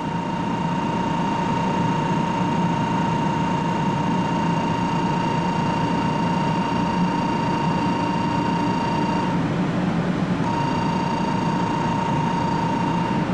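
Station platform departure bell ringing as one steady electronic tone, breaking off for about a second some nine seconds in, then ringing again briefly before stopping. This signals the Shinkansen's imminent departure. Under it is the steady hum of the 500 series Shinkansen standing at the platform.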